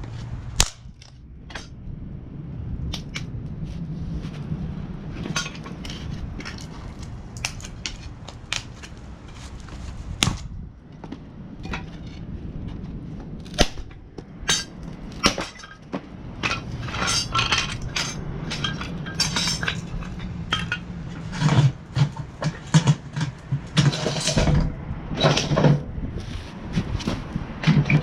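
Stainless-steel fire pit parts clinking and clanking as they are handled: irregular sharp metal knocks, some ringing briefly, that grow busier in the second half.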